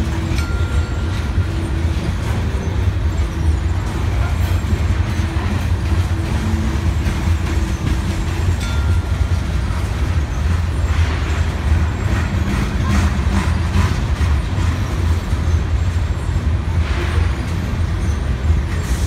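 Freight cars of a passing mixed train rolling steadily over the rails with a heavy low rumble, mixed with the idling of BNSF diesel locomotives standing on the next track. Clusters of sharp clicks from the wheels come in about eleven to fourteen seconds in and again near the end.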